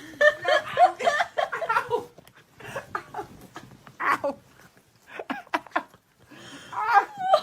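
A person laughing in several bursts with short pauses between, and a few brief clicks.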